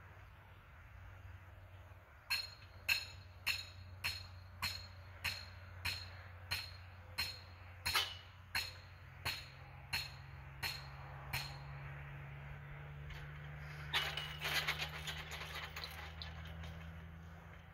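Metal being struck in a steady rhythm, about sixteen ringing blows roughly 0.6 s apart, then a short jangle of clinks, over a low steady hum.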